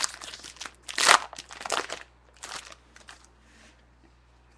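Trading-card pack wrapper being torn open and crinkled by hand: a run of crackly rustles, loudest about a second in, with a last rustle at about two and a half seconds.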